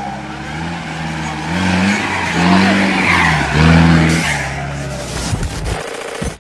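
Off-road competition jeep's engine revving up and down repeatedly as it crawls over rock, with a loud hiss of tyres scrabbling on the rock, strongest in the middle. The engine sound breaks off near the end.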